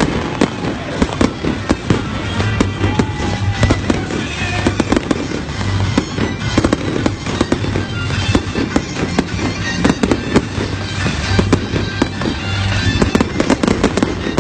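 A fireworks barrage fired from the ground, with a rapid, unbroken stream of bangs and crackles and music playing underneath.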